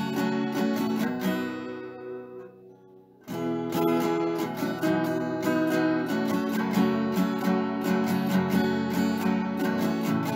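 Background music: strummed acoustic guitar. It dies away about two seconds in, then starts again abruptly a little after three seconds.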